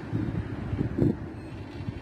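Wind buffeting the microphone in irregular low gusts, strongest about a second in, over a steady low outdoor rumble.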